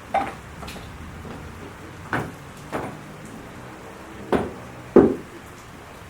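Five sharp knocks, some in pairs about half a second apart, each with a short ring.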